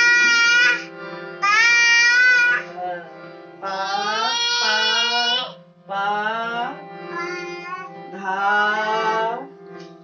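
A toddler singing loudly in short phrases, most of them rising, over the steady reed drone of a harmonium as the child presses its keys.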